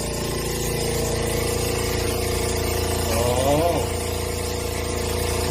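A motor running steadily with an even, unchanging hum.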